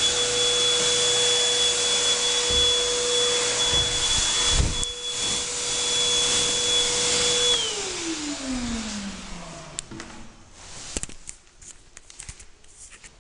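Electric air blower running steadily with a high whine over a rushing hiss, blowing dust off the wall. It is switched off about seven and a half seconds in and its motor pitch falls as it spins down, followed by a few light knocks.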